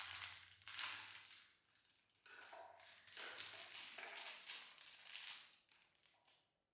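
Faint rustling and light handling noises in several short bursts, with a low hum underneath at the start.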